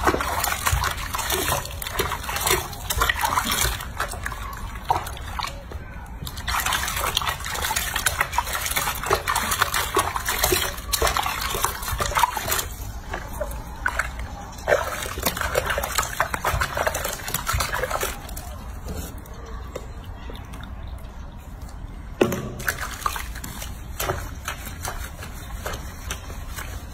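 Bathwater sloshing and splashing in a washbasin as hands lather and rinse a baby monkey, an irregular, continual wet swishing.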